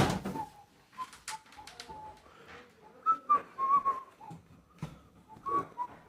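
A person whistling a tune in short notes, with a few sharp clicks and knocks in between.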